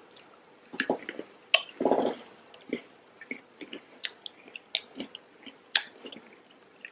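People chewing and crunching bites of a chocolate-and-peanut candy bar, with scattered small crisp crunches and mouth clicks.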